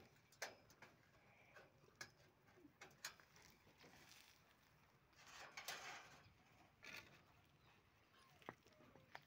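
Near silence: faint background with scattered soft ticks, and one brief scuffing rustle a little past halfway.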